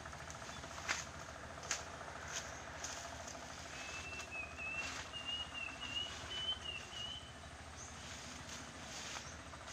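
A few sharp chops at uneven intervals, a bolo cutting through weeds and stalks. A thin, wavering bird whistle runs for about three seconds in the middle.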